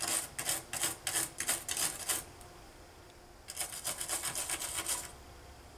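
Stiff non-conductive brush scrubbing corrosion off a Mac LC II logic board in quick, scratchy back-and-forth strokes. Two spells of scrubbing, about a second apart.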